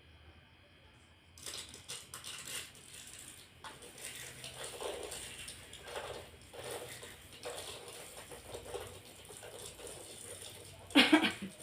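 Soft rustling and handling noises, then about eleven seconds in a single short, loud sneeze from a woman, faked as a prank.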